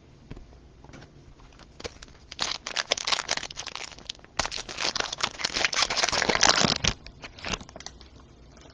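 Crinkling of plastic trading-card packaging being handled, in two crackly bouts of a couple of seconds each, with a few more crinkles near the end.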